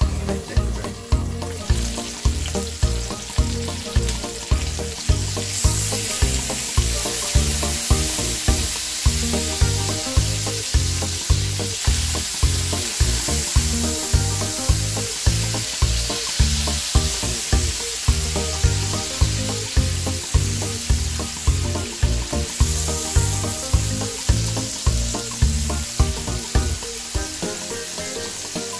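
Chicken breasts shallow-frying in oil in a nonstick pan, a steady sizzle that grows louder about five seconds in. Background music with a steady beat plays underneath and fades out near the end.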